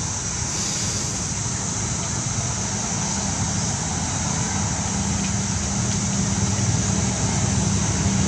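Steady outdoor background noise: a constant low rumble with a steady high-pitched hiss above it and no distinct events.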